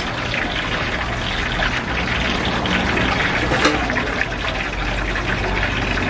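Hot oil in a large street-stall deep-fry pan bubbling and sizzling in a dense, steady crackle, over a low steady hum.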